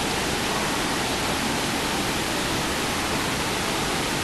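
Steady rush of running and falling water from an indoor water park's water features.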